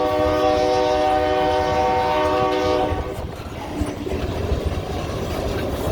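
Diesel freight locomotive's air horn sounding one steady multi-note chord, cut off about three seconds in, after which the train's rolling rumble carries on.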